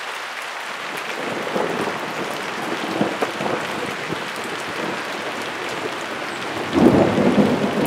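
Steady heavy rain falling, with a loud rumble of thunder setting in about seven seconds in.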